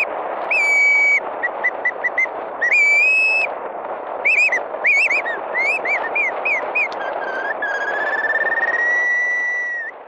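A mouth-blown bird decoy whistle imitating sandpiper calls to lure shorebirds toward a net: a string of clear whistled notes, some held, a quick run of short notes, then rapid up-and-down slurred chirps, and a long slowly rising note near the end, over a steady background hiss.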